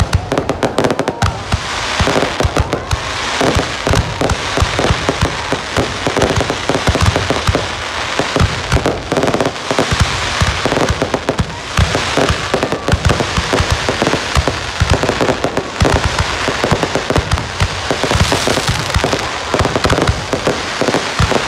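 Fireworks display: a continuous barrage of aerial shells going off, rapid overlapping bangs and crackling bursts without a break.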